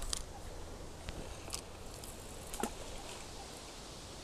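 Faint handling noise of a fishing rod and reel: a few small clicks and rustles, the clearest about two and a half seconds in, over a low steady rumble of wind on the microphone.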